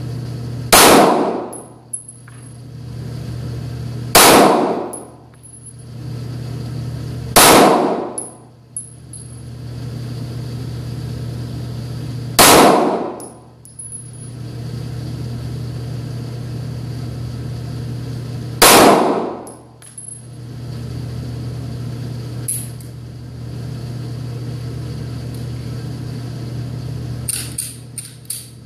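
Five single shots from a Taurus Millennium G2 Pro 9mm semi-automatic pistol, fired slowly one at a time a few seconds apart, each ringing briefly in the indoor range. A steady low hum lies underneath, and a few light clicks come near the end.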